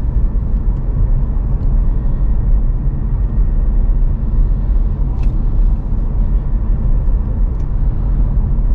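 Steady low road and tyre rumble inside the cabin of a moving VinFast VF5 electric car, with no engine note, and a faint click about five seconds in.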